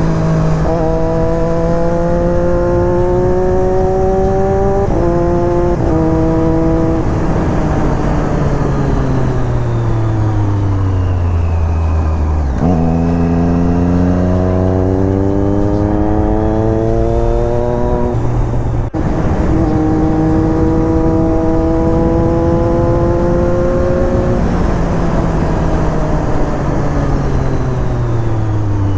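Triumph Daytona 675's three-cylinder engine under way, its pitch climbing through the gears with short steps at the shifts, easing off and winding down twice, over steady wind rush.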